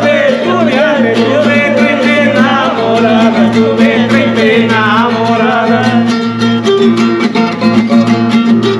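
A man singing while strumming a nylon-string classical guitar in a steady rhythm.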